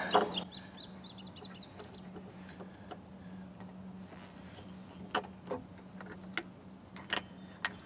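About five sharp metal clicks in the second half from hands working an adjustable solar-panel mounting bracket, as its height is set by its holes. Birds chirp for the first couple of seconds, over a steady low hum.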